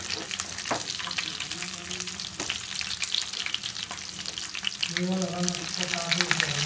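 Masala-marinated fish frying in hot oil in a pan: a dense, continuous sizzling crackle that grows a little louder toward the end.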